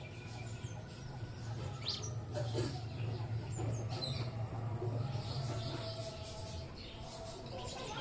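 Small pet birds chirping and twittering in short, quick calls, over a steady low hum.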